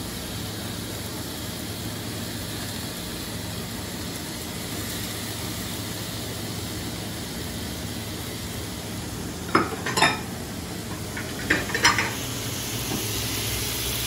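Seafood, chorizo and rice sizzling steadily in a steel paella pan on a gas range. Two pairs of sharp clicks from a spatula knocking and scraping against the pan and the mixing bowl come in the last few seconds.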